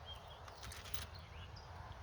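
Wind rumbling on the microphone, with small birds chirping in short calls throughout. A quick run of sharp clicks about half a second in.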